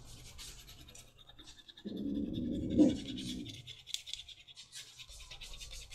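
Quick scratchy rubbing strokes of a dauber working gum tragacanth onto the edge of a leather holster. About two seconds in, a dog growls for a little over a second.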